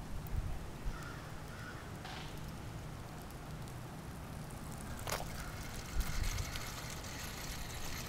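Outdoor ambience: a steady low rumble with faint running water from the junk fountain, and one sharp click about five seconds in.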